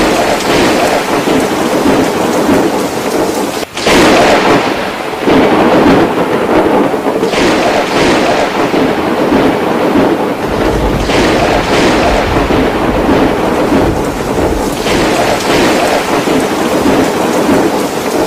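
Heavy rain pouring down in a thunderstorm, loud and steady with surges, and a low rumble of thunder for several seconds around the middle.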